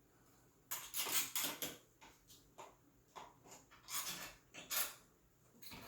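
Irregular clinks, knocks and rattles of hard bike parts and hardware being handled during assembly, with clusters about a second in and around four to five seconds in.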